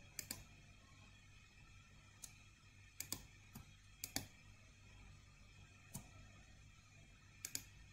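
Faint, scattered clicks of a computer mouse, some in quick double-click pairs, over a low steady hum.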